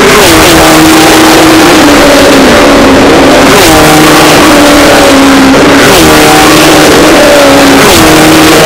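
Super 6000 class GR Supra stock cars with 6.2-litre V8 engines passing one after another. Each engine's pitch falls as it goes by, about four times.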